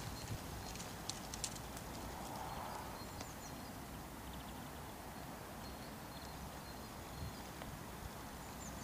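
Quiet outdoor ambience: a steady faint hiss with a few short, high chirps and clicks in the first few seconds and occasional soft low knocks.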